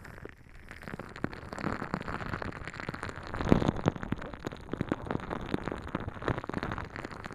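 A water-bead stress ball squeezed and rubbed right against a binaural microphone's ear, giving a dense run of small squishy crackles, loudest about three and a half seconds in.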